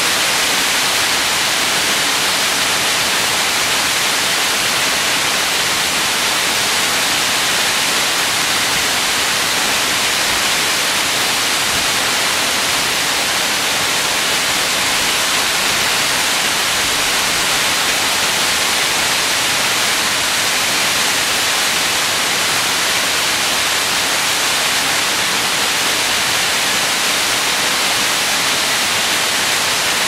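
Waterfall in full flow after heavy rain: a steady, loud rush of falling water.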